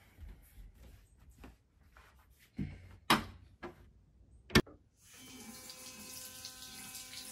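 A few sharp knocks and handling noises, then a bathroom sink faucet turned on about five seconds in and running steadily as a toothbrush is wetted under the stream.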